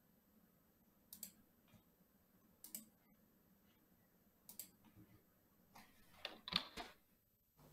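Faint room tone with a few scattered clicks, then a louder cluster of clicks and knocks about six seconds in.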